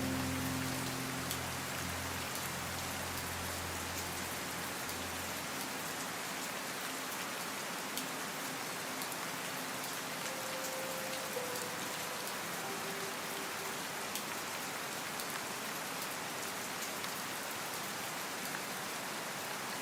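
Steady rain falling: a continuous even hiss with scattered sharp drop ticks. Faint sustained low tones sit under it for the first few seconds.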